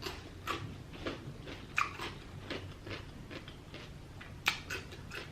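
Close-up mouth sounds of a person chewing food: irregular wet smacks and clicks, with a sharper smack about four and a half seconds in.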